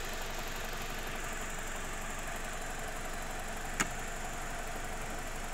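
A single sharp plastic click about four seconds in as a plastic trim clip on the car's radiator support is pressed into place, over a steady background hum.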